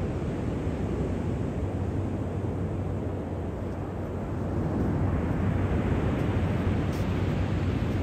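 Pacific Ocean surf breaking on a sandy beach: a steady low rushing roar that swells and brightens about five seconds in as a wave breaks and washes up the shore.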